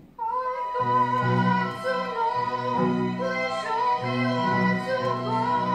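A soprano singing a long, wavering high note in operatic style, over a musical accompaniment that comes in just under a second in.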